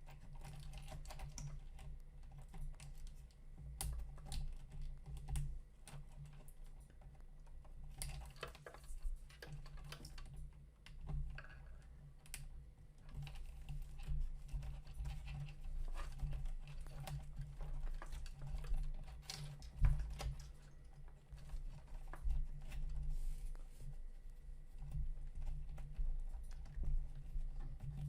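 Hands working the cables and plastic parts of a 3D printer kit: irregular light clicks and rattles, with no steady rhythm.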